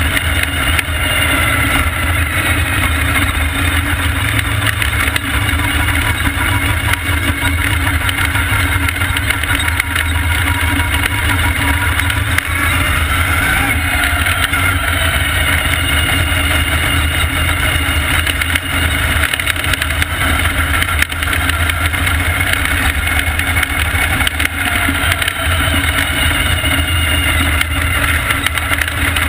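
Vintage supermodified race car's engine heard on board at racing speed, running loud and steady. The engine note dips and climbs again about halfway through as the car goes through a turn.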